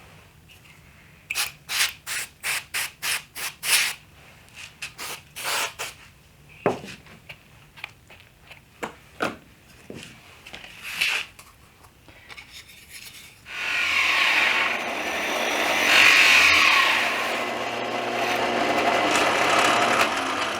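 A quick series of short rubbing strokes on wood, about four a second, then scattered single strokes. About two-thirds in, a power tool starts and runs steadily, louder than the strokes, with a low hum under it.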